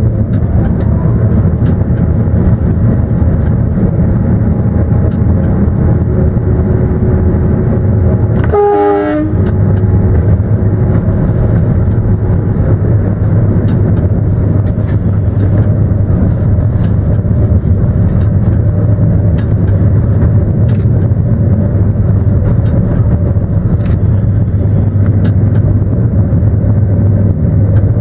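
Steady loud rumble of a train running on the rails, heard from the locomotive cab. About nine seconds in, a short horn sounds, falling in pitch.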